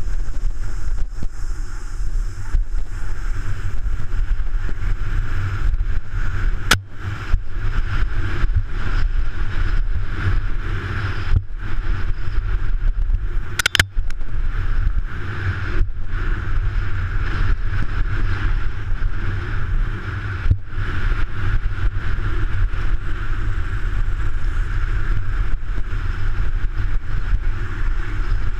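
Wind buffeting a bike-mounted action camera's microphone, mixed with the steady rumble and rattle of a mountain bike riding over a dirt trail, with a couple of sharp clicks about seven and fourteen seconds in.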